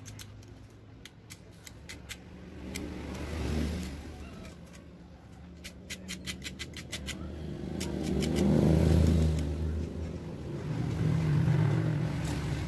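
Motor vehicles passing, their low engine hum swelling and fading several times, loudest about nine seconds in. Over it come runs of light clicks as a small white plastic part is handled against a metal vise.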